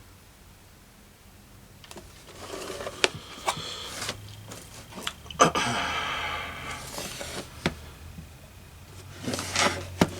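Computer-part packaging being handled: cardboard and plastic rustling, broken by several sharp clicks and taps, after a quiet first two seconds.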